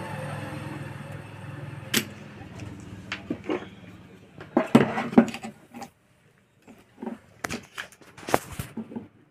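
Sharp clicks and small knocks of desoldering work on a welding-inverter circuit board, as the solder is cleaned off the pads, over a low hum that fades out about halfway through. One sharp click stands out about two seconds in.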